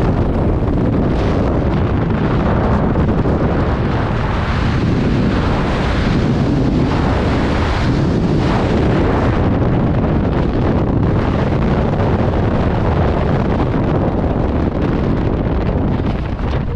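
Loud, steady rush of freefall wind buffeting the microphone of a skydiver's camera.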